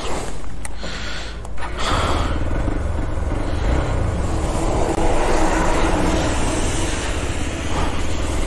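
Single-cylinder Hero Xpulse 200 4V motorcycle being ridden: wind rushing over the handlebar-mounted camera's microphone with the engine running underneath, growing louder about two seconds in as the bike picks up.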